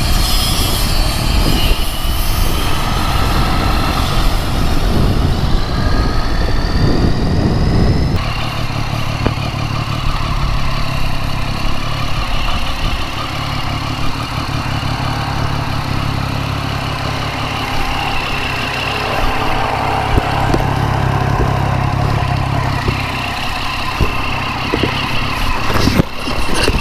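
Triumph Street Triple's three-cylinder engine running as the motorcycle is ridden, with road noise. The engine note settles into a steady drone about eight seconds in.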